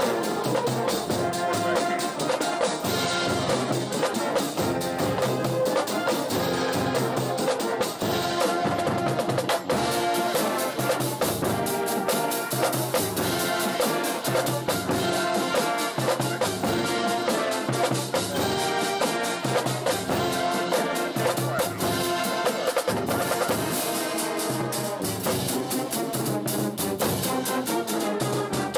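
Marching band playing a stand tune: brass horns carry the melody over bass drums and snare drums.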